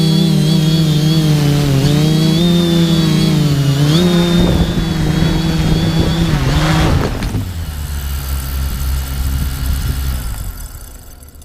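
TBS Discovery quadcopter's electric motors and propellers buzzing with a high whine, the pitch rising and falling as the throttle changes. About seven seconds in the buzz stops, and the remaining low rumble fades out near the end.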